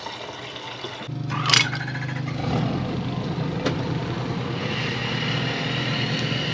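An engine starts about a second in and then runs steadily at a low idle.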